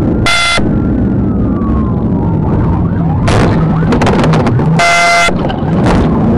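Police car siren wailing over the patrol car's engine, with two short horn-like blasts, the first just after the start and the second about five seconds in. In between comes a stretch of rough crunching and clattering as the patrol car brakes hard and the pursued car spins around in front of it.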